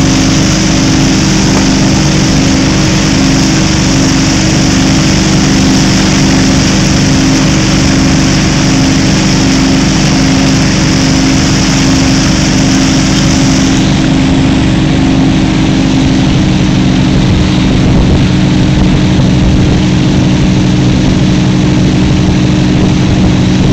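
Inboard engine of a wake-surf boat running steadily at surfing speed, with water rushing in the churning wake behind the stern. A high hiss drops away about halfway through.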